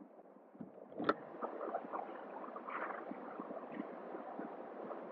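Faint, crackly rolling noise of a Vespa scooter riding down a ribbed concrete parking ramp, with a sharp click about a second in.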